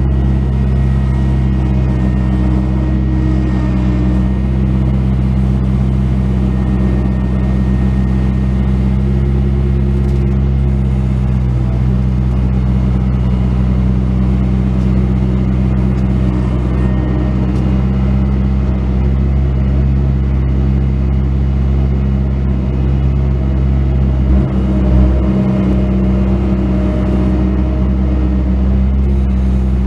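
Bobcat S185 skid steer loader's diesel engine running steadily under throttle, with a short low surge about 25 seconds in.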